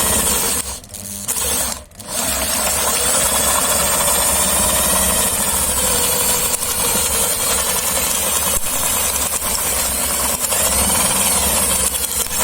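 Electric drill driving a hand-crank meat grinder as it grinds whole crabs. The drill stops briefly twice near the start, then runs steadily.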